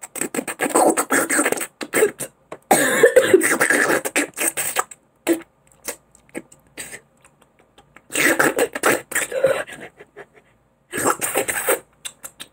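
A person making loud wet sucking and slurping mouth noises with a fist at the lips, in four bursts with short quiet gaps between them.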